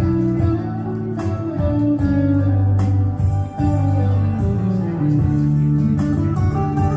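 Live country band playing an instrumental break between sung verses, led by guitar over steady low bass notes, with a few sharp percussive hits.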